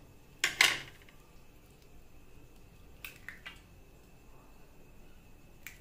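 Eggs cracked open into a stainless steel bowl: a loud sharp crack about half a second in, two quicker cracks around three seconds in, and a lighter tap near the end, with quiet in between.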